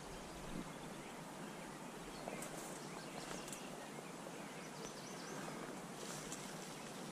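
Quiet outdoor ambience: a steady, faint hiss with a few faint bird chirps now and then.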